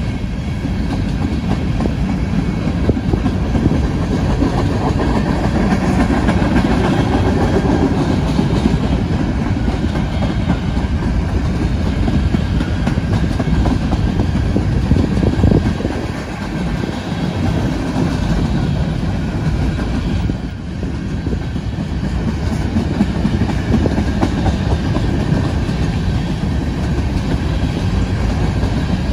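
Covered hopper cars of a BNSF freight grain train rolling past close by: a steady rumble of steel wheels on the rails. The rumble dips briefly twice past the middle.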